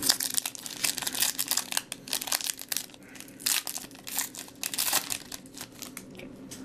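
Trading cards being handled and shuffled by hand: a dense run of crisp crackling and crinkling from the card stock and pack wrapper that thins out about five seconds in.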